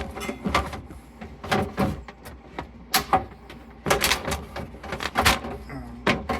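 Irregular knocks, clunks and scrapes of items, shelves and drawers being handled and slid in a refrigerator during cleaning.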